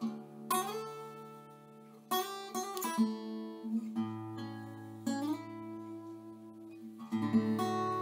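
Background music on acoustic guitar: plucked notes and chords ringing out over held bass notes, with a few notes sliding up in pitch.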